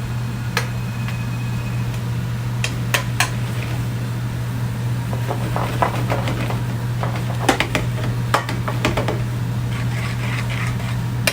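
A metal utensil clinking and scraping against a pan while pasta and ravioli are tossed in sauce, with several sharp clinks scattered through, over a steady low hum.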